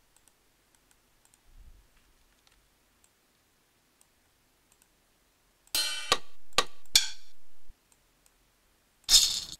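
Percussion samples previewed one by one in a music program. About six seconds in comes a short run of sharp, ringing cymbal-like hits, and near the end a brief hissy shaker sample that gets rejected as the wrong shaker. Faint mouse clicks come before them.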